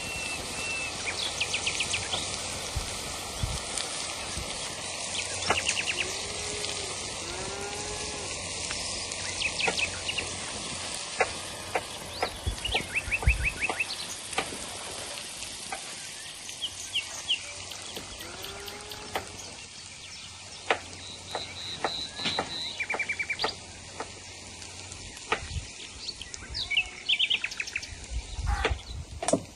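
Shredded cabbage sizzling steadily in a wide iron sac pan over a wood fire, with small birds chirping in short rapid trills every few seconds and a few dull knocks.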